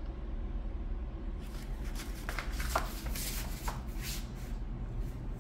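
Rustling and scraping handling noise that starts about a second and a half in and runs in quick irregular strokes, over a low steady hum.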